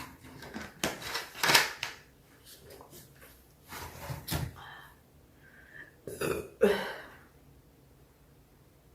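A person burping, in three groups of short burps spread over about six seconds, the first and last groups the loudest.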